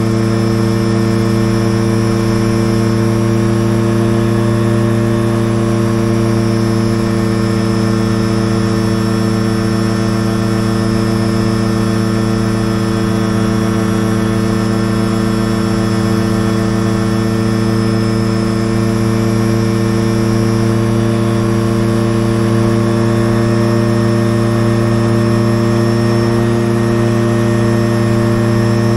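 Light aircraft's engine and propeller running at a steady cruise setting, heard from inside the cockpit, with an even pitch and no change in power.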